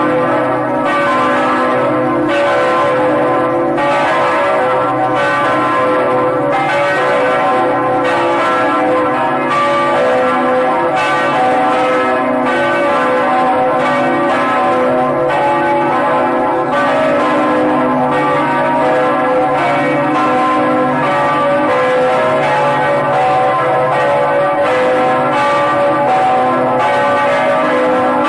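Bells ringing in a continuous peal, struck in quick succession so that their tones overlap and ring on without a break.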